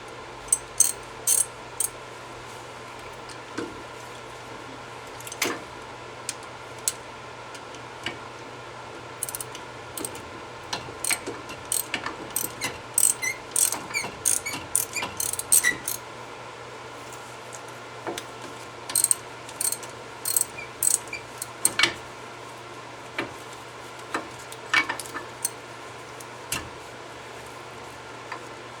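Hand ratchet wrench clicking in bursts, with scattered sharp metal clinks of tools and brake parts, over a steady low hum.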